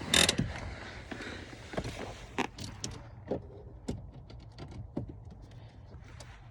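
A sharp knock right at the start, then scattered light clicks and taps of hands working small plastic parts: the fuel pump fuse being pulled from the fuse box before the engine is cranked.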